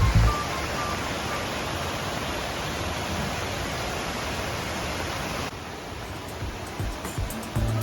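Steady rush of falling water from a monsoon waterfall cascading down rock. It drops abruptly to a lower level about two thirds of the way in, and a few light knocks come near the end.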